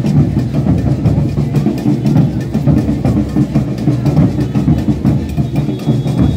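Maracatu drum ensemble playing, many large drums and snares in a dense, steady rhythm.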